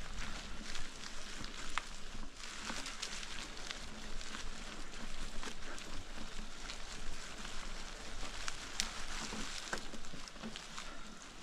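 Bicycle tyres rolling over a trail covered in dry fallen leaves: a steady crackle of many small clicks.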